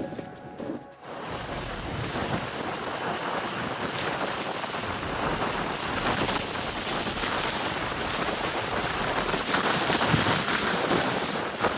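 Steady rushing hiss of wind and snow, starting about a second in and slowly growing louder.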